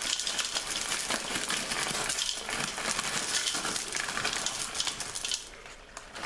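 Frozen mixed vegetables (carrots, peas, corn, green beans) poured into a pot of stew, making a dense rattle of many small hard pieces landing. It stops about five and a half seconds in.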